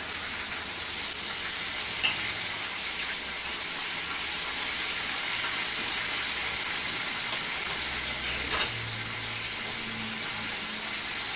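Chicken pieces deep-frying in hot peanut oil in a pot: a steady sizzle, with a couple of faint clicks.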